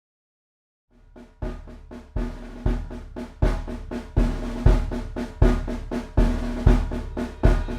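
A drum kit playing a steady rock beat, with kick drum and snare hits, opening a song; it starts about a second in after silence, with faint sustained notes beneath.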